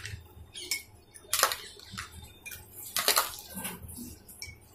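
Ice cubes dropped from a steel spoon into glasses of lemon drink: a series of light clinks of ice and spoon against glass, with small splashes.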